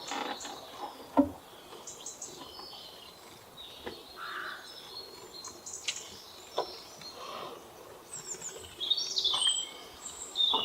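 Small birds chirping, with short high notes scattered throughout and a busier run of calls near the end. A single sharp click about a second in is the loudest sound.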